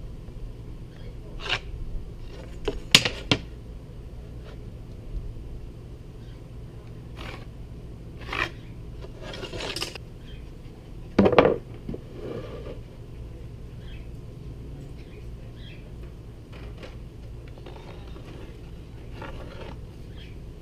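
Scattered short scrapes and knocks of a metal framing square and marker being handled and drawn across a plywood sheet while cut lines are marked out, the loudest knock a little past the middle, over a steady low hum.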